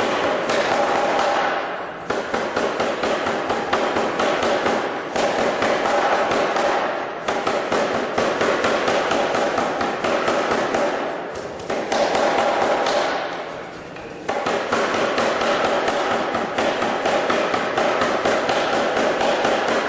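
Anyang 25 kg self-contained air hammer striking hot steel in fast runs of blows. The runs are broken by short pauses every few seconds.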